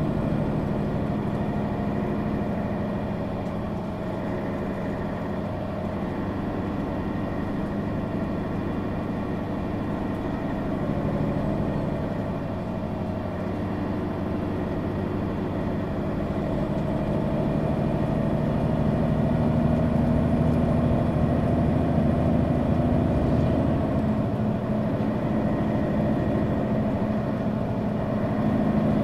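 Mercedes-Benz Citaro G articulated city bus's Daimler OM 457 hLA inline six-cylinder diesel engine running continuously. Its note shifts in pitch with engine speed and grows louder from about halfway through.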